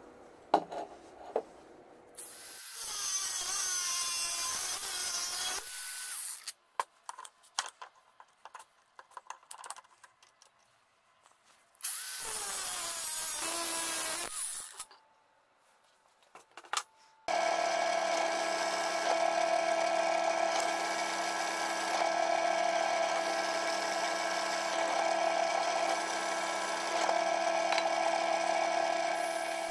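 Cordless angle grinder cutting a rusty steel bar in two bursts of about three seconds each, with scattered clicks and knocks of handling between them. From a little past halfway, a drill press motor hums steadily.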